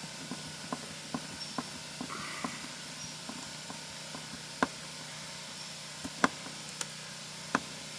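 Scattered small clicks and taps, a dozen or so at uneven intervals with a few louder ones in the second half, as a replacement plastic door-holder clip is handled and lined up against the RV's sidewall over the old screw holes.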